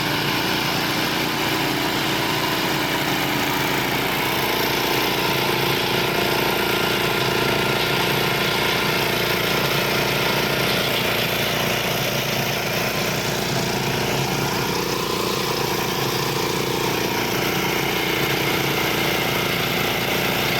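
Ride-on lawn mower's 13-horsepower engine running steadily under load while mowing tall grass on a slope.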